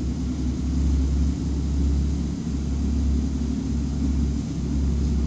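Porsche Cayman GT4's flat-six engine idling steadily with a low rumble.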